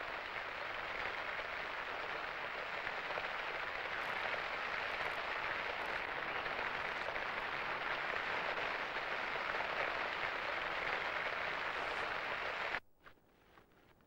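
Steady rain falling, a dense even hiss that cuts off abruptly near the end.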